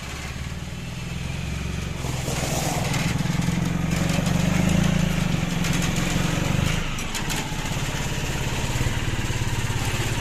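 Vehicle engine running and pulling harder for a few seconds, then dropping back about seven seconds in and running on steadily, as the vehicle is driven and turned.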